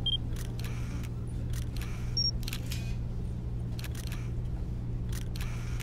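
Camera sound effects: a steady low motor hum with irregular shutter-like clicks, and two short high beeps, one at the very start and one about two seconds in.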